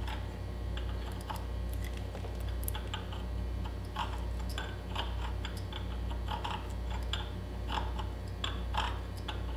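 Thread chaser file scraping over the damaged threads of a quad's wheel spindle in short, irregular strokes: light metallic clicks and rasps over a steady low hum.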